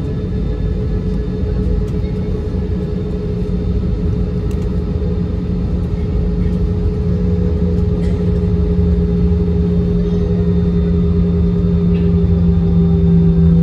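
Airbus A320's CFM56 jet engines heard from inside the cabin over the wing while the jet rolls on the ground before takeoff: a steady low hum with two held tones, growing slowly louder.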